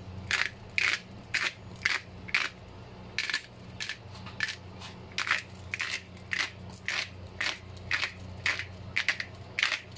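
Hand pepper mill grinding black peppercorns over a pot of soup, a rapid series of short crunchy twists about twice a second.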